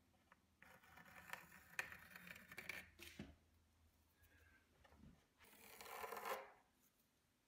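Pencil scratching on a painted wooden window sill as a marking line is drawn: two spells of faint scratching, from about half a second to three seconds in and again around six seconds.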